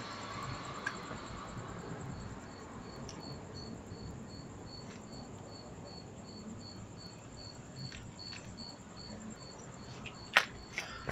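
A cricket chirping in a steady rhythm, a short high chirp about three to four times a second, over a faint hiss. A rush of passing traffic fades out in the first couple of seconds, and a couple of sharp knocks sound near the end.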